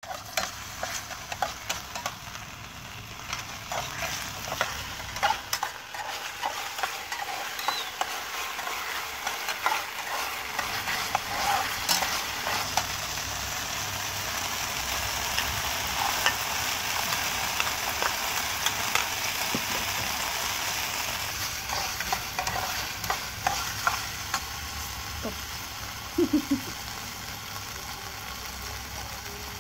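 Food frying in a nonstick pan, with a steady sizzle. A metal spatula scrapes and taps against the pan again and again as it stirs.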